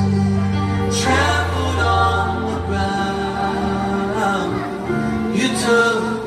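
Singing of a gospel song over music with long held low notes.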